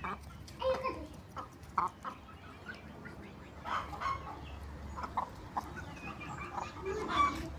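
Aseel chickens clucking in short, scattered calls, the loudest near the end.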